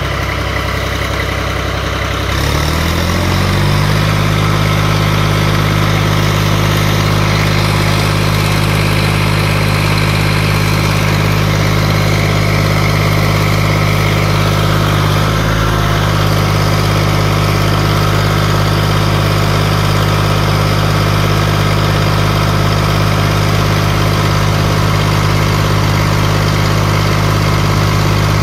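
John Deere 5310 tractor's three-cylinder diesel engine running. About three seconds in it speeds up, then holds a steady higher speed, with a brief dip about halfway through.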